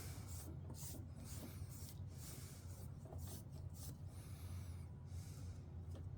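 Foam brush spreading Mod Podge over thin craft plywood: soft, faint rubbing in repeated strokes.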